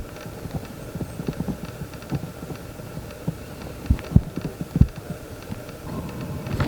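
Irregular soft, low knocks and thumps, with a few louder thuds about four to five seconds in.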